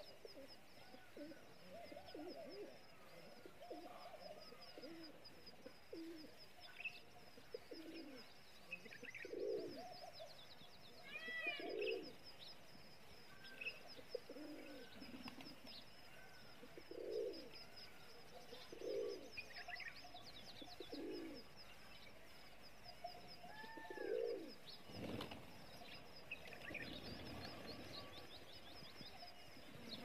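Rock pigeons cooing, low notes that come again and again, over a steady high twittering of small birds. About twenty-five seconds in there is a brief flurry of flapping wings.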